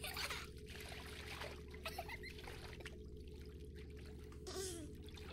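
Bath water trickling and splashing in short irregular surges, with a few brief squeaky glides, over a low steady hum.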